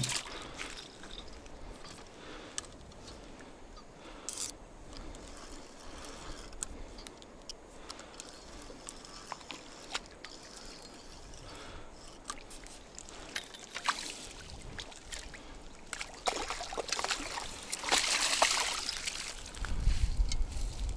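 A hooked carp splashing and thrashing in shallow water as it is played to the shore and netted, with water sloshing. The splashing is loudest near the end.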